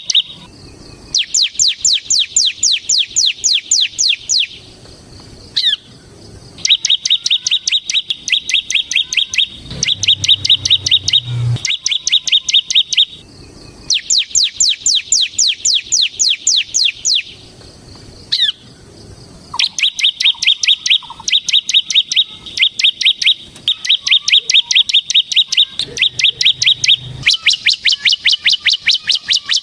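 Bar-winged prinia (ciblek) singing its fast, trilling 'ngebren' song: bursts of rapid high notes at about ten a second, each lasting two to three seconds, with short pauses between them.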